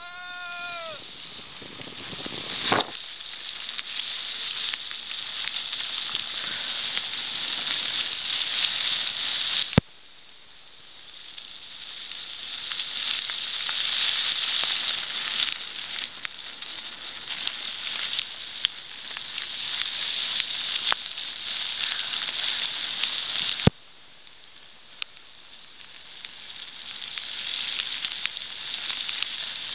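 Mountain bike tyres rolling fast over a wet gravel trail in the rain: a steady crackling hiss of grit and spray that swells and fades with speed. It breaks off with a click twice, about fourteen seconds apart, and builds again each time. A short high squeal is heard at the very start.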